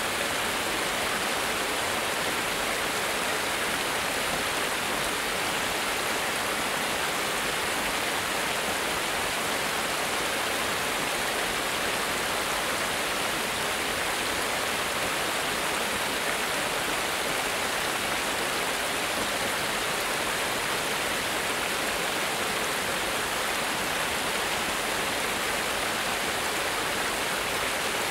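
Small water cascade spilling over a low stone weir into a stream: a steady, unbroken rush of falling and splashing water.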